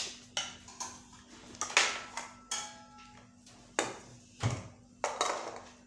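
Metal spoon scraping and knocking against a steel karahi and small bowls while thick halwa is scooped and served: a run of sharp clinks, loudest just under two seconds in, one ringing briefly about two and a half seconds in.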